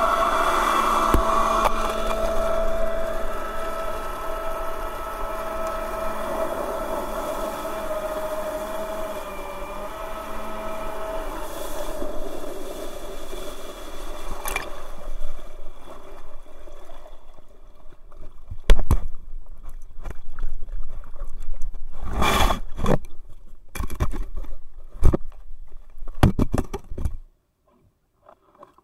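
Electric jet surfboard's jet drive whining steadily over rushing water; the whine cuts off about eleven seconds in and the water noise fades as the board coasts. Then a series of sharp knocks and scrapes as the board is handled in the shallows, before the sound drops out near the end.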